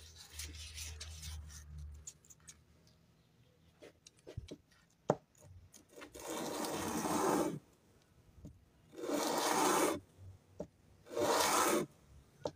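Elk antler handle piece, its end face rubbed back and forth on a sheet of sandpaper: three long sanding strokes in the second half, after some lighter handling noise and a single sharp click.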